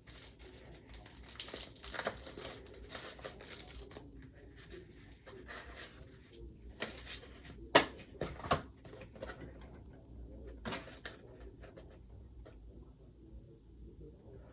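Rustling and crinkling of packaging being handled and opened, with scattered small clicks and two sharper taps about eight seconds in.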